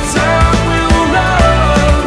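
Music with a steady drum beat and a melody line over it.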